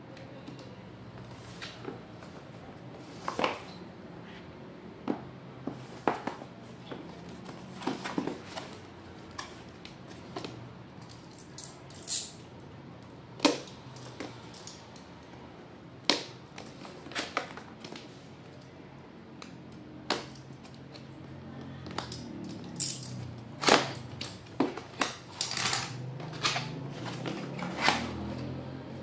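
A cardboard laptop box being handled and turned over on a tile floor: irregular knocks, taps and scrapes, the loudest about three-quarters of the way through, over faint background music.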